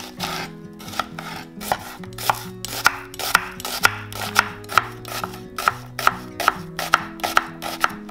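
Kitchen knife chopping vegetables on a cutting board in a quick, even rhythm of about three to four strokes a second, over soft background music.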